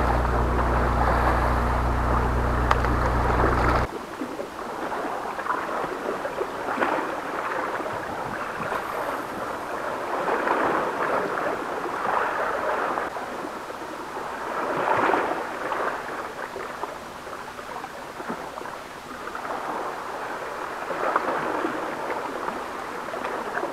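Sea waves washing against the rocks, swelling and easing every few seconds, with some wind. For about the first four seconds a steady low hum sits under it and then cuts off suddenly.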